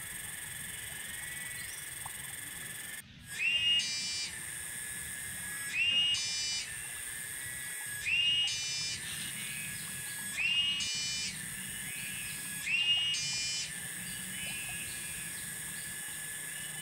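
An animal calling five times, about every two and a half seconds; each call is a short rising whistle followed by a buzzy rattle, over a steady high-pitched insect drone. The sound cuts out for a moment just before the first call.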